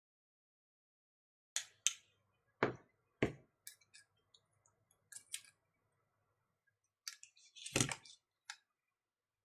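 Scattered clicks and taps of small tools and watch parts being handled during a smartwatch teardown, with two louder knocks about a third of the way in and a flurry of clicks ending in another knock near the end.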